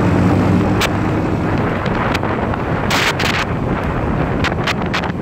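Motorcycle riding at speed with wind buffeting the microphone. The Yamaha YBR125's single-cylinder four-stroke engine hums steadily at first and is then mostly covered by wind noise, with sharp crackling wind blasts about three seconds in and several more near the end.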